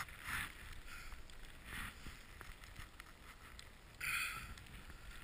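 Faint rustling and swishing from movement in deep powder snow, with a few soft swishes and a louder hiss about four seconds in.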